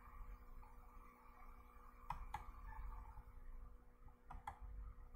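Computer mouse clicks: two quick pairs of faint clicks, about two seconds apart, over a faint steady hum.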